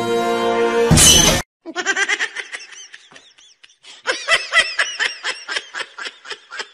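A held chord of added music cuts off about a second in with a short, loud noisy hit. Then comes a high-pitched giggling laugh sound effect in rapid short bursts, which eases briefly and picks up again.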